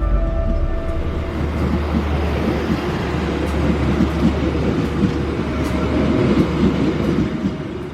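A train running at a railway station: a steady low engine drone under continuous rumbling rail noise, with faint scattered clicks.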